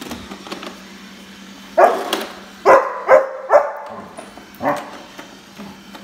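German Shepherd puppy barking at a robot vacuum: a quick run of about five sharp barks starting about two seconds in, the last a little apart from the rest.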